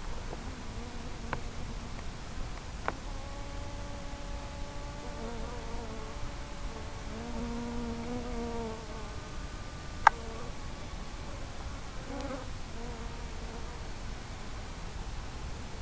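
Electric motor and propeller of a small FPV model plane buzzing steadily at part throttle, heard through the onboard microphone over a steady hiss. The buzz wavers a little in pitch, and there is one sharp click about ten seconds in.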